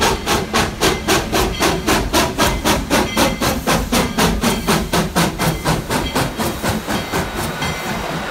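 Steam locomotive chuffing as it works along the track, with sharp, even exhaust beats at about four a second that grow fainter near the end.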